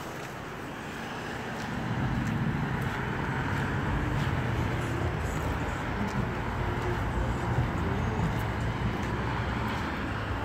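Road traffic passing on a city street: a steady hum of car and truck engines and tyres that grows louder about two seconds in and stays up.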